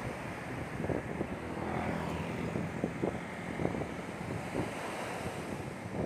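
Low surf breaking and washing up a sandy beach, with wind buffeting the microphone in uneven gusts.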